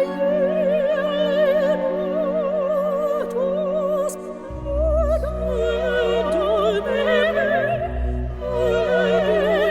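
Operatic singing with strong vibrato over an orchestral accompaniment; deep bass notes join about four and a half seconds in.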